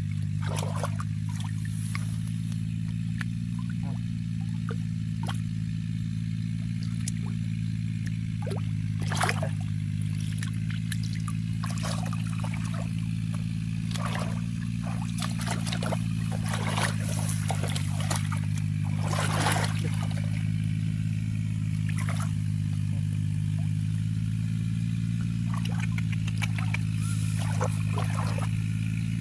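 A small engine running steadily, with water pouring and splashing now and then over it.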